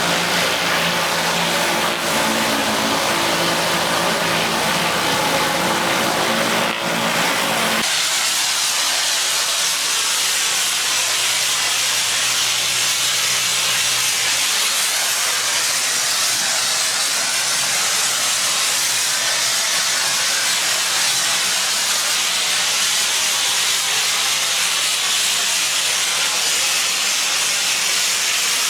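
Gas pressure washer at work: a steady hiss of high-pressure water spray over the engine running. About eight seconds in the engine sound drops away and the spray hiss carries on alone with a faint low hum.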